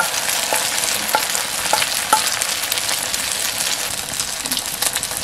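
Beaten egg sizzling as it fries in hot oil in a blackened frying pan, a steady hiss with a few sharp pops in the first two seconds.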